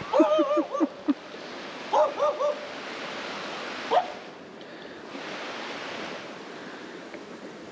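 A series of short, high yelps with bending pitch, a quick run of them in the first second, two or three more about two seconds in and one last at about four seconds, over the steady rush of rapids.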